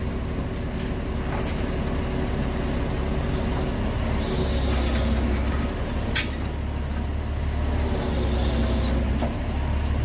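Diesel engine of a crane truck running steadily at a low drone while it holds a bulldozer track frame on its chains. A sharp metallic knock about six seconds in and a lighter one just after nine seconds, with a brief high hiss in between.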